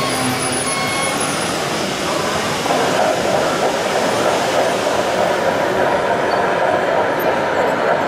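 Radio-controlled tracked carrier dumper running, with a steady mechanical noise. A pulsing warning beep, about two a second, stops about a second in, and the running noise gets louder about three seconds in.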